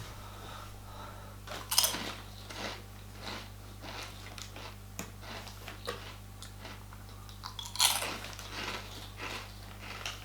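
Irregular crunching and crackling noises close to the microphone, loudest about two seconds in and again near eight seconds, over a steady low hum.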